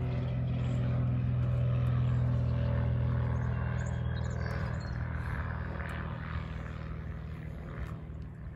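An engine running steadily with a low hum, slowly fading over the second half.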